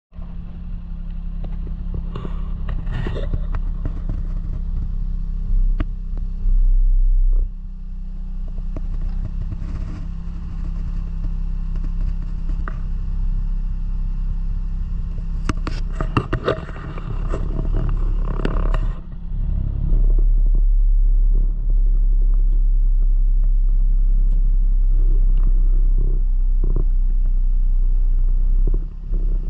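A car engine running steadily, with scattered knocks and clatter over it; a deep rumble grows much louder about six seconds in, briefly, and again from about twenty seconds in.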